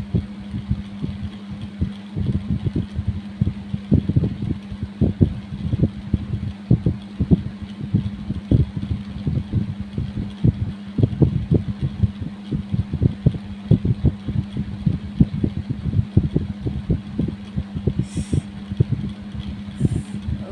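Kerokan: a coin or scraper drawn repeatedly over the skin in short rubbing strokes, about two or three a second, over a steady low hum.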